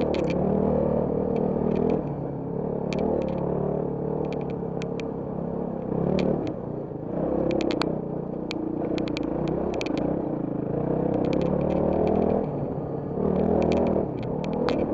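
Trail motorcycle engine running under changing throttle, its pitch rising and falling with brief drops as the throttle is eased. Frequent sharp clicks and rattles come from the bike over a stony track.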